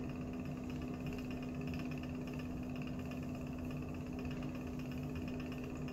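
Magnetic stirrer motor running with a steady hum and a constant low tone as it spins the stir bar in the beaker.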